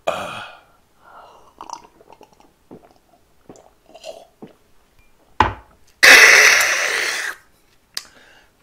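A man drinking from a glass in a few quiet sips and swallows, then setting the glass down with a sharp knock about five seconds in, followed by a long, loud breathy exhale of satisfaction lasting over a second. A light click comes near the end.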